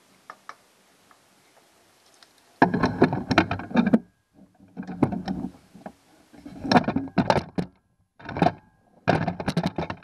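Repeated clunks and knocks of metal parts being worked by hand: the kicker outboard's steering rod linkage and mounting bracket pushed as the motor, turned hard to the right, binds and will not turn further. The knocks start about two and a half seconds in and come in five separate bunches.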